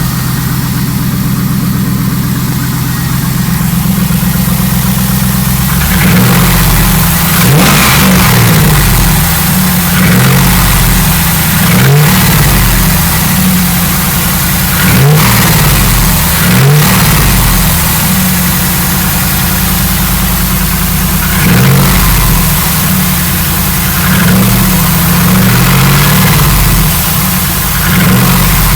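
GM LS1 5.7-litre V8 idling, then revved in short throttle blips over and over from about six seconds in. The uploader takes the engine's noise for piston slap.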